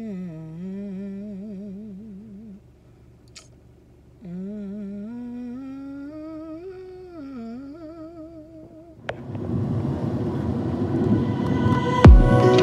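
A woman humming a wavering tune with closed lips, in two phrases with a short pause between. About nine seconds in, louder background music with deep bass hits comes in.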